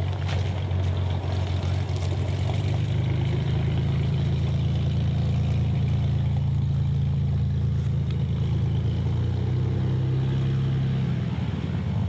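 A steady, low engine hum, like a vehicle engine idling close by, with a slight change in its pitch near the end.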